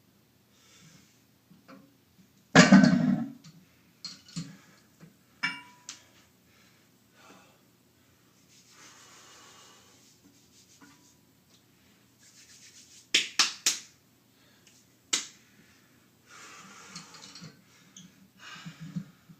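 Hard breathing and exhaling from a man lifting a heavy iron anvil for repetitions, with a loud gasp or grunt about three seconds in. A quick cluster of sharp clicks comes about two-thirds of the way through.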